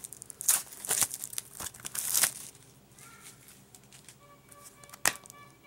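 Plastic shrink-wrap crinkling and tearing as it is pulled off a Blu-ray case, in crackly bursts over the first two seconds or so. After that it is quieter, with faint background music and a single sharp click about five seconds in.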